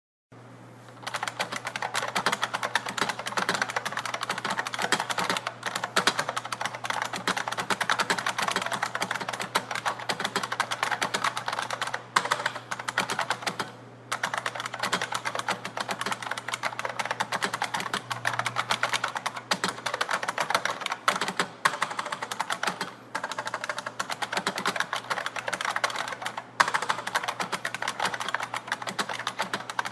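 Unicomp buckling-spring keyboard being typed on fast and continuously, a dense stream of keystrokes starting about a second in, with a few brief pauses.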